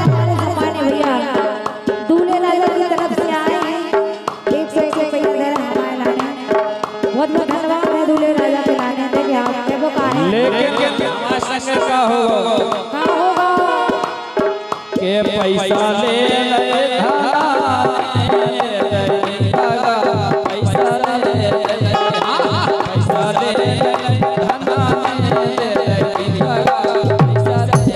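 Live Bundeli rai folk music: a harmonium with a voice singing and a drum keeping a fast, steady beat. The drum strokes come to the fore about halfway through.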